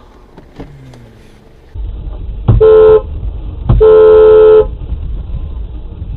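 Car horn sounded twice, a short blast then a longer one of nearly a second, both very loud, over a steady low rumble from a moving vehicle.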